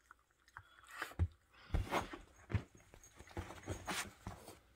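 A dog licking and nuzzling a cat's fur: rustling and wet licks with irregular soft thumps, the loudest about one and two seconds in.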